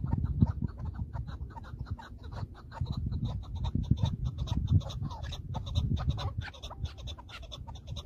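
Chukar partridge calling, a rapid run of short clucking notes several times a second, over gusty wind rumbling on the microphone.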